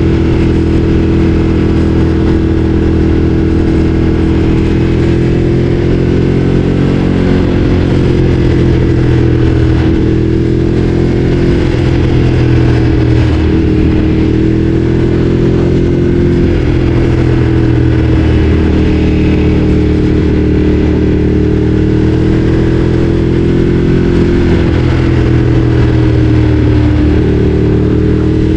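Ducati Streetfighter 848's L-twin engine running under way at fairly steady revs, the pitch easing up and down a little with small throttle changes.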